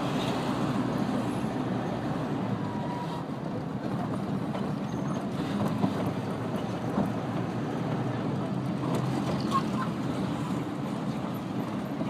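Busy city street ambience: a steady wash of traffic, cars and engines passing, with indistinct voices of people in the background.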